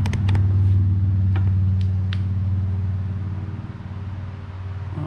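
A steady low motor hum runs underneath throughout. Over it come a few light metallic clicks and two short rings in the first couple of seconds, as the steel pedal assembly and its bolts are handled.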